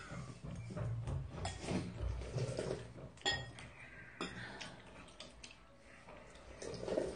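Metal spoons clinking and scraping against ceramic soup bowls as two people eat, with a few sharp clinks a little past the middle.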